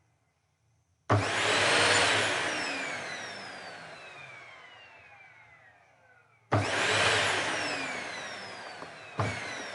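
Vacuum cleaner motor switched on in short bursts: it starts suddenly, whines up for about a second, then winds down with a falling whine. It starts twice more, about five seconds later and again near the end.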